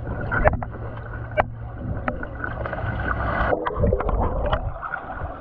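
Underwater sound of a swimming pool picked up by a GoPro below the surface: a muffled low hum with scattered sharp clicks. From about three and a half seconds in, air bubbles stream past the camera.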